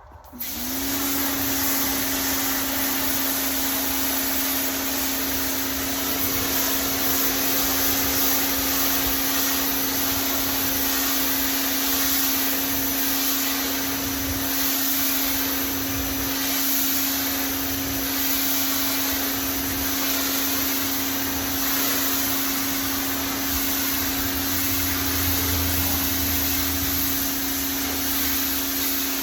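Pressure washer starting up, its motor tone climbing to pitch within half a second, then running steadily with the hiss of the water jet spraying a soaped outdoor rug.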